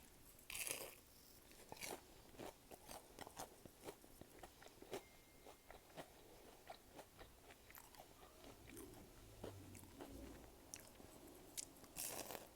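Mouth sounds of eating: quiet chewing with crunching bites and moist clicks, including two louder noisy bursts, one about half a second in and one near the end.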